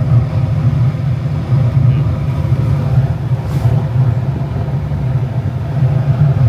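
Gas furnace running, its inducer fan motor and blower fans turning with a steady low hum. The inducer motor, which had only been humming without turning before the repair, now runs.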